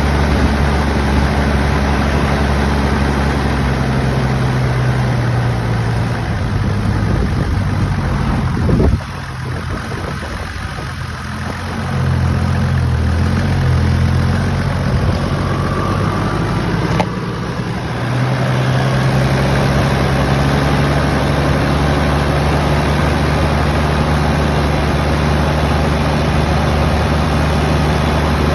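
Toyota 1HZ 4.2-litre straight-six diesel idling unevenly: a rough idle that goes with a loss of power. About nine seconds in there is a sudden loud moment, after which the engine runs quieter and unsettled for a few seconds before it settles again.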